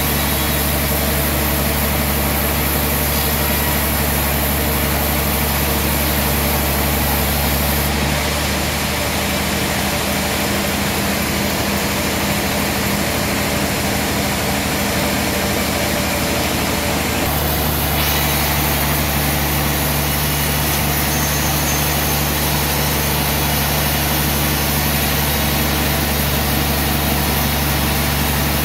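Large sawmill band saw and its drive running steadily with a continuous mechanical hum. Its tone shifts abruptly about eight seconds in and shifts back about seventeen seconds in.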